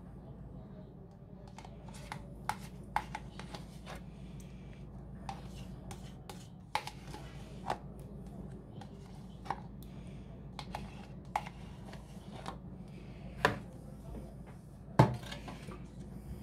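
Plastic sour-cream cups knocking and scraping against the rim of a mixing bowl as the cream is emptied in: scattered, irregular clicks and knocks, with two louder knocks near the end, over a steady low hum.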